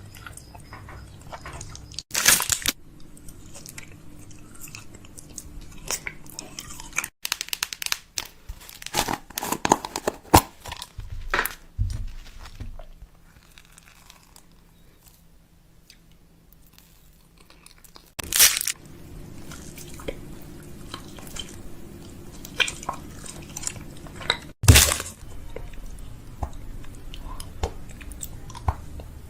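Crunchy snacks being bitten and chewed, a string of sharp crunches coming thickest a few seconds in, with a quieter pause in the middle.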